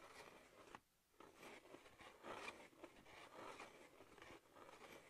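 Faint scraping of a Walabot DIY Plus X wall scanner sliding in circles over drywall during its calibration, in uneven rubbing strokes with a brief pause about a second in.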